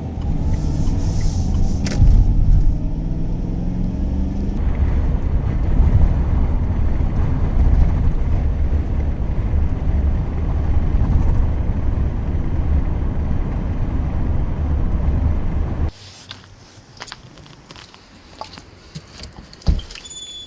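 A van driving, with low engine and road rumble; the engine note rises over the first few seconds as it gets under way. About sixteen seconds in the rumble stops abruptly, leaving a much quieter stretch of scattered clicks and one sharp knock.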